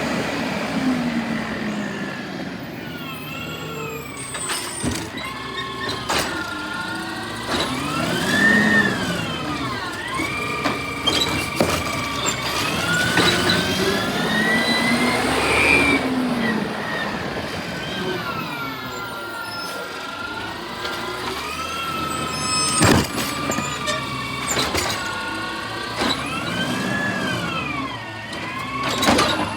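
Garbage truck at work: a whine whose pitch rises and falls over and over, with several sharp knocks along the way.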